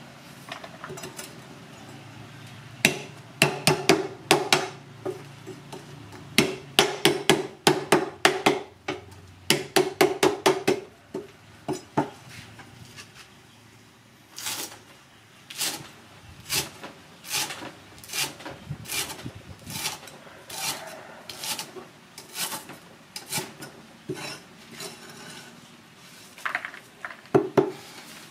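Knife and meat cleaver chopping green onion and lemongrass on a thick wooden chopping block. Quick runs of chops come first, then slower, evenly spaced chops about one a second, and a short burst of chops near the end.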